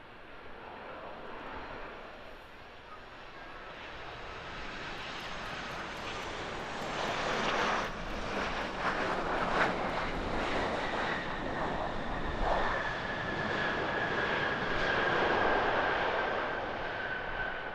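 Jet engines of a Boeing 737-800 airliner (CFM56 turbofans) landing: the sound builds as the plane comes in and touches down about eight seconds in, then grows to its loudest during the landing roll, with a high whine slowly falling in pitch.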